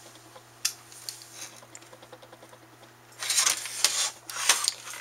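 Parts of a partly disassembled CD-ROM drive being handled: a few small clicks and taps, then, about three seconds in, a second and a half of louder scraping and rattling. A low mains-like hum runs underneath.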